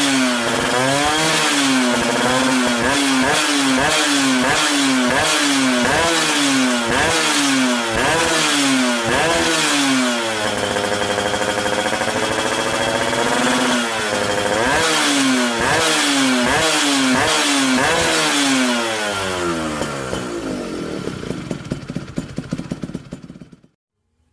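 Yamaha F1ZR's two-stroke single-cylinder engine with a racing exhaust, blipped repeatedly about once a second. In the middle it is held at a steady high rev for a few seconds, then blipped again. Near the end it falls back to a choppy, uneven run before the sound cuts off.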